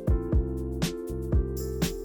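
Background music with a steady beat: a drum hit about twice a second over held chords.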